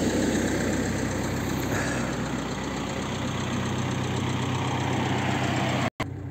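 Cummins 2.8 four-cylinder turbodiesel of a GAZelle Next van idling steadily; the owner, who is losing antifreeze and suspects the head gasket, judges it is not misfiring. The sound drops out for an instant near the end and comes back quieter.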